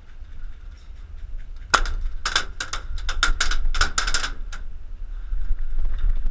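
Gas blowback airsoft pistol (Tokyo Marui Hi-Capa 5.1) firing a quick string of about a dozen sharp shots over roughly three seconds, starting a couple of seconds in.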